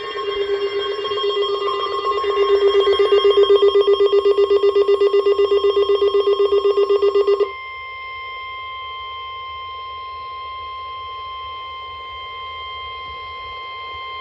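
Emergency Alert System attention tones: a rapidly pulsing, buzzer-like alarm tone for about seven and a half seconds, then a steady single high tone, the NOAA Weather Radio 1050 Hz warning alarm tone, for about seven seconds.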